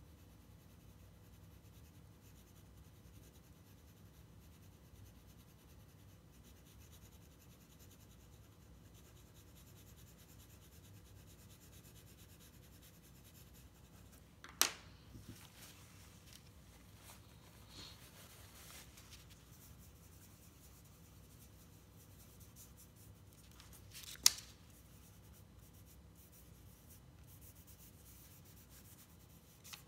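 Graphite pencil shading on drawing paper: faint, soft scratching of light strokes, broken by two sharp taps about ten seconds apart, the second the loudest.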